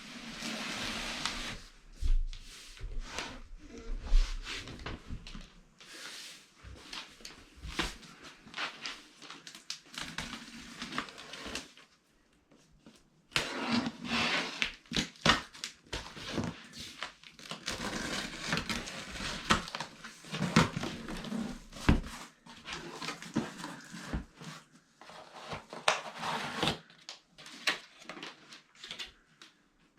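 Cardboard box and packaging being handled: irregular rustling, scraping and knocks, with a brief pause about twelve seconds in.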